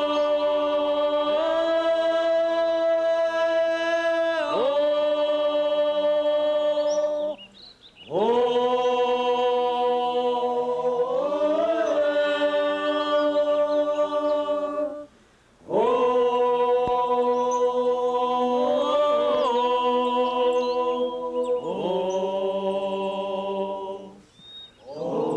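A group of voices chanting or singing in long held chords, in phrases of about seven to eight seconds, each ending in a brief pause.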